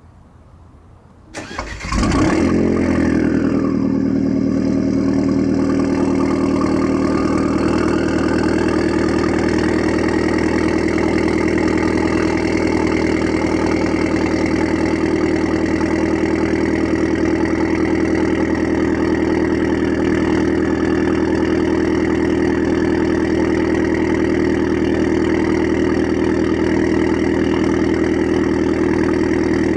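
Alfa Romeo MiTo with a Supersprint aftermarket exhaust being cold-started: the engine cranks and catches about a second and a half in with a brief flare of revs, then settles into a steady idle.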